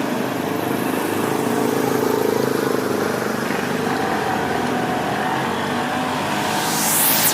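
Motorcycle engine sound effect running steadily, starting abruptly, with a rising hiss sweeping up near the end.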